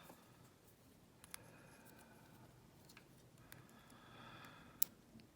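Faint small metallic clicks and light scraping from a disassembled pin-tumbler lock cylinder and its parts being handled, with one sharp click near the end.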